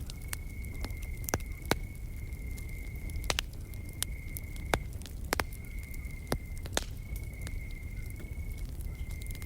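Wood campfire crackling with several sharp pops over a low rumble, with a steady, high-pitched insect trill that breaks off briefly every second or two.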